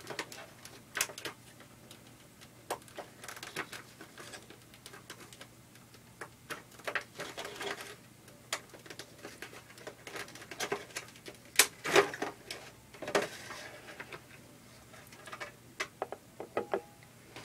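Irregular small clicks, taps and rustles as a diecast model airliner and its plastic packaging are handled, the busiest about two-thirds of the way through. Near the end the model is set down on the desk with a few light clicks.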